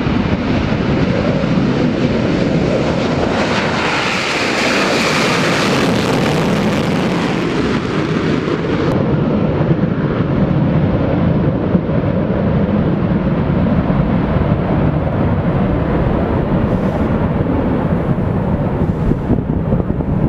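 B-1B Lancer bomber's four afterburning turbofan engines at takeoff power: loud, steady jet engine noise with a hissing top that peaks about four to seven seconds in, then dulls as the bomber climbs away.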